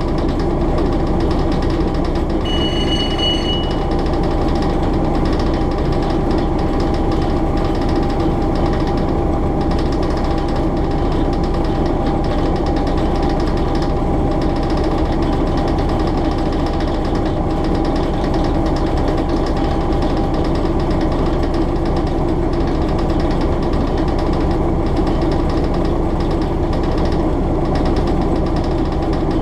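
Hastings DEMU's English Electric four-cylinder diesel engine running with its characteristic thump, heard from the motor coach's driving cab, together with the steady rumble of the train on the rails. A brief high tone sounds about two and a half seconds in.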